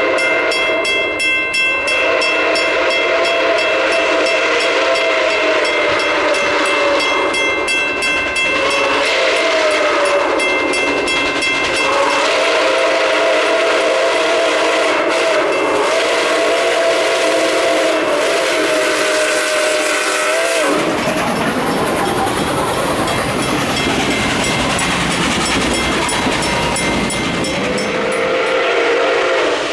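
Nickel Plate 765, a 2-8-4 Berkshire steam locomotive, sounding its steam whistle in long blasts, a chord of several tones with short breaks between. About two-thirds of the way through, the whistle stops with a slight dip in pitch as the engine passes close. The locomotive and its cars then roll past with a loud rushing rumble of wheels on rail. The whistle sounds again near the end.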